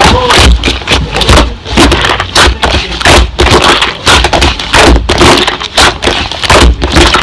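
Slime being squished and kneaded by hand, making dense, irregular clicking and popping with low thumps. The sound cuts off suddenly at the very end.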